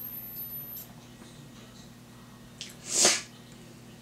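A Yongnuo YN-560 II speedlite's capacitor charging with a high whine that rises in pitch and stops within the first second as the flash finishes recycling. About three seconds in there is a short, loud, breathy burst from a person.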